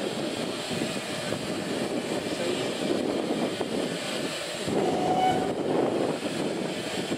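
Narrow-gauge steam locomotive Russell, a 1906 Hunslet 2-6-2T, standing and simmering with steam escaping, heard as a steady rushing noise. A brief faint tone sounds about five seconds in.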